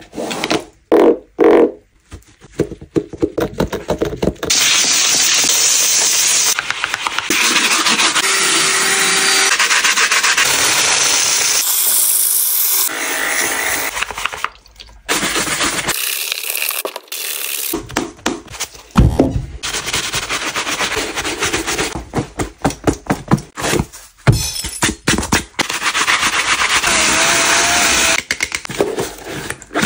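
Sneaker-cleaning sounds in quick cuts: a stiff bristle brush scrubbing with wet cleaning solution, with splashes and knocks as the brush is dipped in a tub and the shoe is handled. Near the end, a cordless drill spins a round brush attachment against a foam insole.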